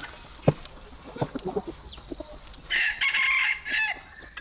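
A rooster crows once, a call lasting about a second, after a few short clucks. A sharp knock comes about half a second in.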